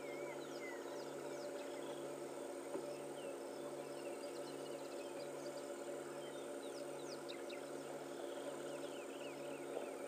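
Assorted birds chirping and calling in short rising and falling notes, over a steady low hum and a low throb that repeats a little more than once a second.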